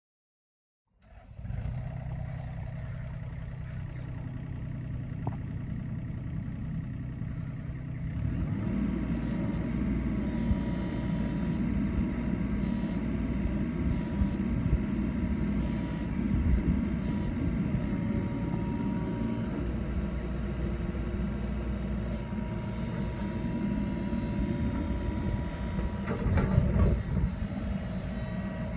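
2019 Takeuchi TB225 mini excavator's diesel engine running steadily, growing louder about eight seconds in as the boom and arm are worked on the hydraulics. There is a brief louder clatter near the end.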